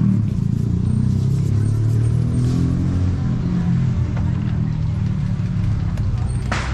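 An engine running nearby with a steady low rumble, and a short sharp noise near the end.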